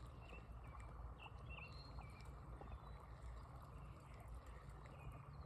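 Faint outdoor ambience: a low steady rumble with a few short, faint high chirps in the first couple of seconds.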